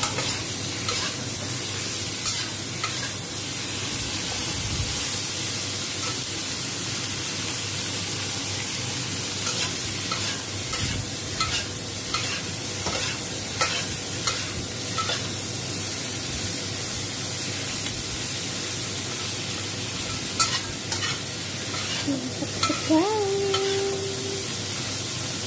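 Shrimp sizzling in hot oil in a wok while being stirred and tossed with a spatula, which clacks and scrapes against the pan every so often over a steady frying hiss.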